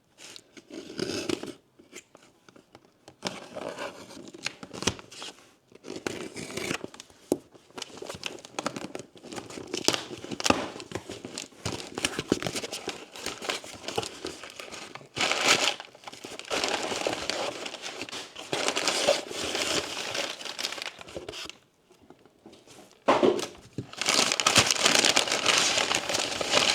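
Packaging crinkling and tearing by hand as a package of battery packs is unwrapped, in irregular bursts of rustling. It is loudest about fifteen seconds in and again over the last few seconds.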